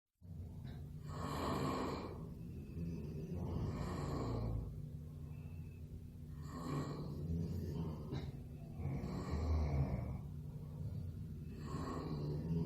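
A person snoring in sleep, a snore on each breath about every two and a half seconds, over a steady low hum.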